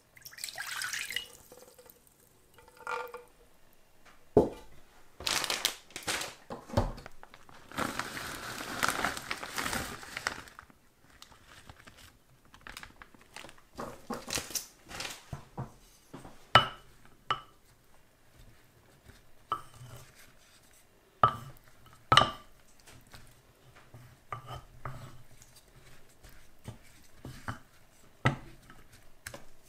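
Liquid poured from a plastic measuring jug into a Korean earthenware dolsot bowl at the start. Then rustling and sharp knocks as sliced cheese is piled in. Later come several knocks on the earthenware that ring briefly, and a wooden spoon goes in near the end.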